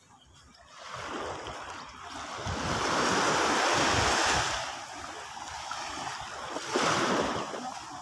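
Sea waves breaking and washing up a sandy beach. The rush swells for a couple of seconds, is loudest around the middle, eases off, then a shorter surge comes near the end.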